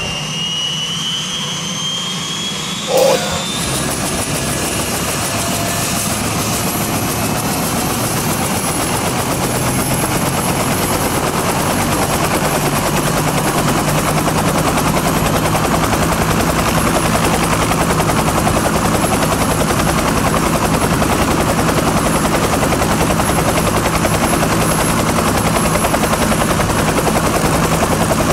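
Helicopter rotor and engine running, building up over the first ten seconds or so and then holding a steady loud chop.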